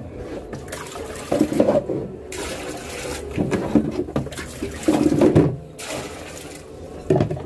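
Water running and splashing in several bursts, as water is drawn for bathing a dog.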